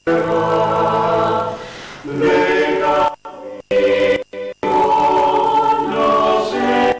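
A mixed vocal quartet of two women and two men singing a cappella in harmony, long held notes in phrases broken by short pauses a little after three seconds in.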